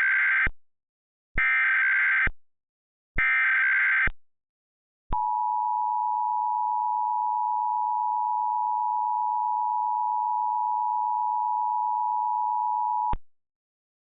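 Emergency Alert System SAME header: the tail of one burst of digital data tones and two more, each about a second long. Then the EAS two-tone attention signal (853 and 960 Hz sounded together) holds steady for about eight seconds and cuts off sharply, marking the start of an alert, here a Nationwide Test.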